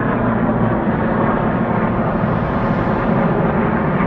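Military helicopters flying overhead: loud, steady rotor and engine noise.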